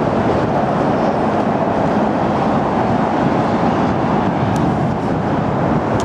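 Steady, even roar of road traffic on the surrounding elevated expressways mixed with wind buffeting the microphone.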